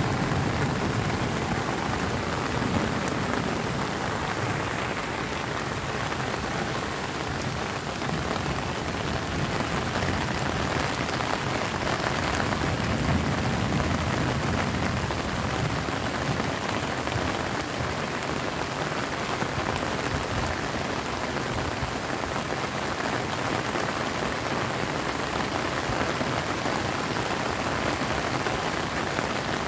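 Steady rain falling, with low rumbles of distant thunder near the start and again about halfway through.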